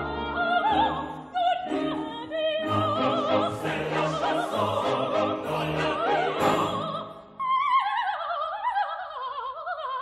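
A coloratura soprano singing an opera aria with vibrato over orchestral accompaniment. About seven seconds in the orchestra drops away and the voice sings a descending run alone.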